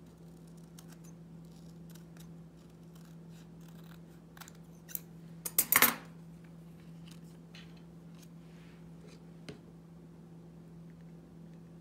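Small craft scissors snipping through thin patterned paper: a run of light snips, with the loudest cluster about halfway through. A steady low hum sits underneath.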